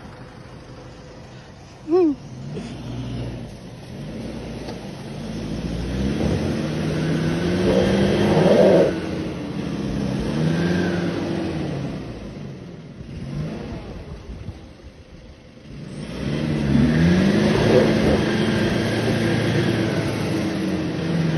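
Toyota Hilux pickup's engine revving up and down over and over, its pitch rising and falling every second or two as it is worked hard off-road. There is a short, sharp, high sound about two seconds in, and the engine drops quieter for a few seconds past the middle before revving hard again.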